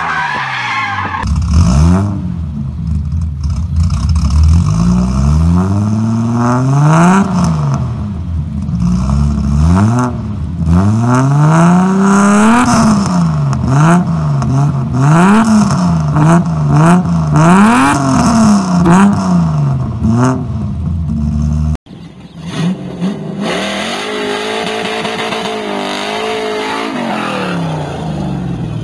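Datsun 280Z engine free-revved over and over through a side-exit exhaust, the engine pitch climbing and dropping about once a second. After a sudden break, an LS V8-swapped Datsun 280Z runs with a steadier, slowly rising and falling drone.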